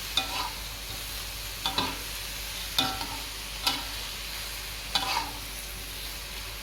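Squid, green chilies and tomato sizzling in a wok while a spatula stirs them, knocking against the pan about six times at irregular intervals of roughly a second.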